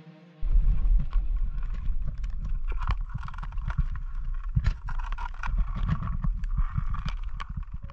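Irregular clicks and knocks of beach pebbles and shells being shifted on wet shingle, over a low rumble of wind buffeting the microphone.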